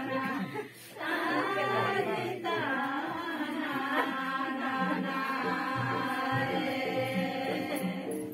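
Group of women singing together, a melodic song for the dance; the singing drops away briefly about a second in, then carries on.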